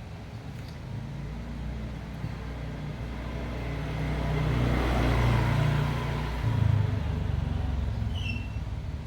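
A motor vehicle passing close by: its engine hum and road noise build to a peak about halfway through, then fade.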